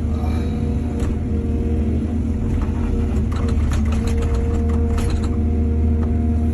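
Excavator's diesel engine running steadily under load. From about two and a half seconds in, a cluster of rattling clicks and clanks runs for nearly three seconds.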